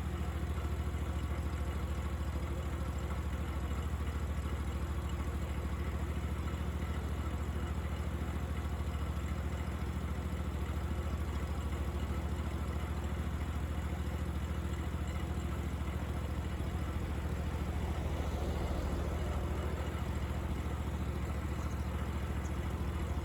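Fiat 500 engine idling steadily.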